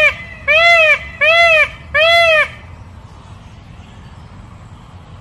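Peacock (Indian peafowl) calling: a series of loud honking calls, each about half a second long and rising then falling in pitch. The tail of one call is followed by three more in quick succession, stopping about two and a half seconds in.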